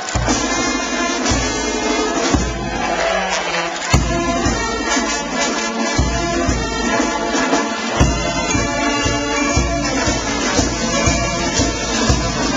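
Marching band playing loudly, brass over a steady, pounding bass-drum beat.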